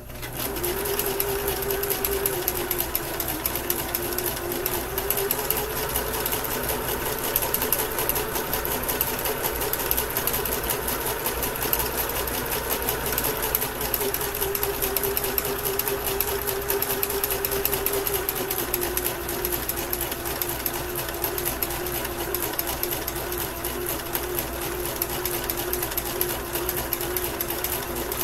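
Kenmore entry-level electric sewing machine running steadily, sewing a zigzag stitch along the edge of cross stitch fabric. The motor hum wavers slightly in pitch as the foot pedal is eased on and off.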